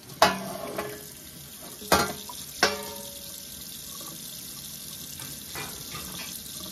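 Metal baking sheet clanking three times against the sink and other pans, each knock ringing briefly; then a tap runs steadily into the sink.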